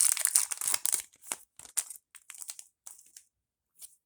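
Crinkling of a plastic trading-card pack wrapper being handled: dense crackling for about a second, then scattered crackles that die away near the end.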